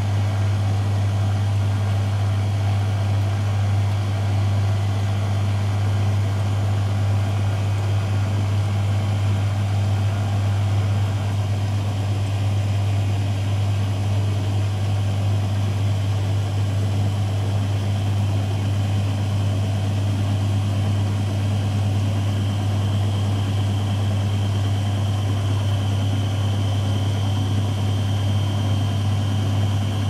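Beko WM74155LS washing machine running steadily: a constant, strong low hum with a faint high whine that rises a little near the end.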